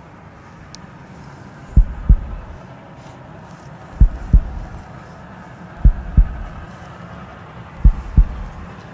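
Steam locomotive air pump working in a slow heartbeat-like rhythm: a deep double thump about every two seconds, coming a little quicker near the end, over a steady low rumble.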